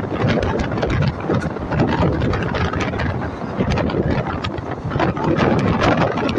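Express passenger train running, heard from aboard: a steady rumble of wheels on rails with frequent irregular clicks and rattles.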